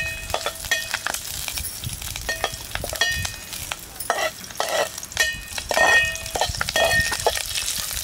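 Bay leaf, cloves, cardamom and green chillies sizzling in hot oil in a pot while a ladle stirs them, clinking and scraping against the pot many times.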